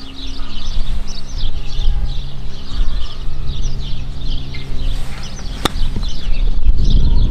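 Small birds chirping continually over a steady low rumble, and about five and a half seconds in a single sharp click of a golf club striking the ball.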